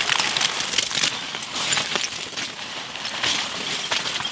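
Lumps of charcoal poured from a sack, clattering into a concrete-block cooking pit as a dense run of sharp clicks and rattles.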